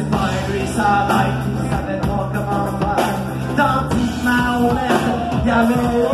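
Rock band playing a punk-tinged song, with a singing voice over a steady bass line.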